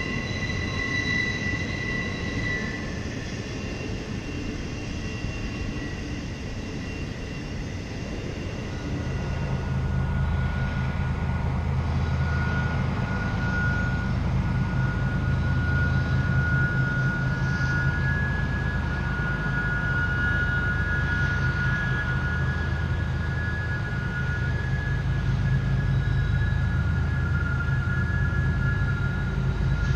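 Freight train going through a tight curve: steel wheels squealing against the rail in several steady high tones. From about nine seconds in, the deep steady drone of its diesel locomotives joins in and grows louder.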